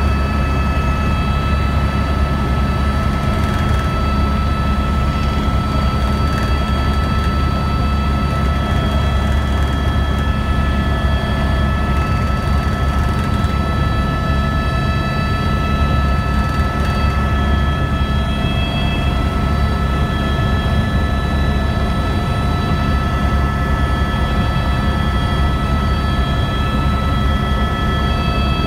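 Helicopter in steady flight heard from on board: a constant low drone with several steady high whine tones above it.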